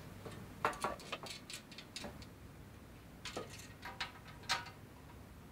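Light, irregular clicks and taps of small metal parts and hand tools against a metal amplifier chassis as tube-socket hardware is handled and fitted.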